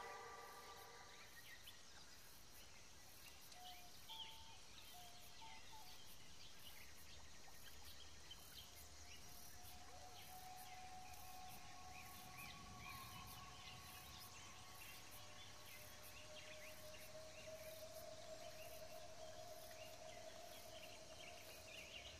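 Faint outdoor nature ambience: insects calling in an even, repeating pulse, with scattered short bird chirps and a few long steady calls in the second half.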